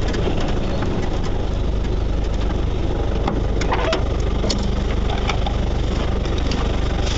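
Off-road 4x4 engine idling steadily, heard from inside the cab, with a few light knocks and rattles about three to four and a half seconds in.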